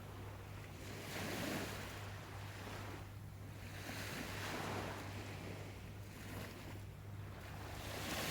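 Small waves washing onto a shore, the surf swelling and ebbing every second or two.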